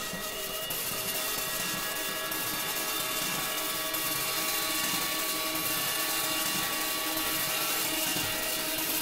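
A small hand-held cymbal rubbed against a larger cymbal turning over a spinning percussion table: a steady metallic grinding friction with a cluster of held ringing cymbal tones over a bright hiss, growing slightly louder about four seconds in.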